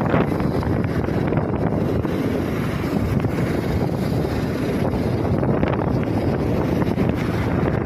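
Wind buffeting the microphone of a phone riding in a moving vehicle: a steady rushing noise with the vehicle's road noise underneath.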